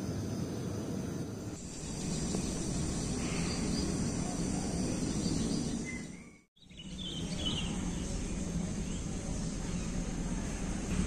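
Steady outdoor background noise with a low rumble and no speech. It fades briefly to silence just past halfway, then resumes with a few faint high chirps.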